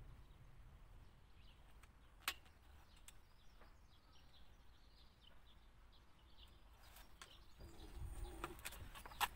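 Faint outdoor ambience with scattered small bird chirps. There is a single sharp click a little over two seconds in, and light knocks and handling noise in the last second or so.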